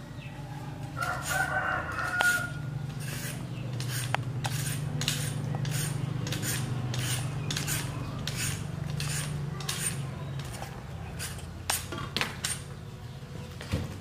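A rooster crows once about a second in. Then come rhythmic scraping strokes of a hand-held vegetable peeler, about two to three a second, over a low hum.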